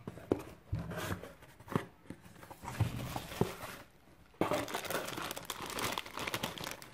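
Bubble wrap and a plastic bag crinkling and rustling as hands unpack them, with scattered sharp crackles. About four seconds in, the crinkling turns denser and continuous.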